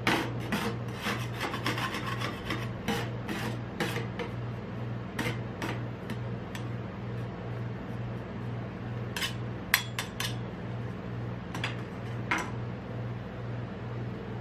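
Metal spatulas chopping and scraping a frozen ice cream mixture on a steel cold plate: quick scrapes and taps, dense for the first few seconds, then sparser strokes. A steady low hum underneath.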